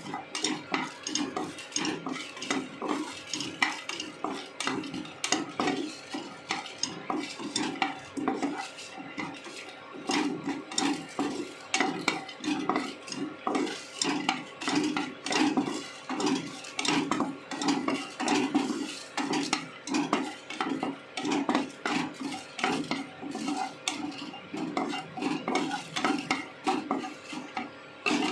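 Metal spatula stirring dried red chillies and cashews around a kadhai, scraping and knocking against the pan about twice a second as they roast.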